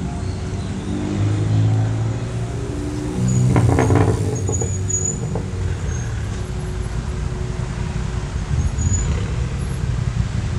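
City street traffic: cars passing along the avenue with a steady engine and tyre rumble, one vehicle swelling louder twice in the first few seconds.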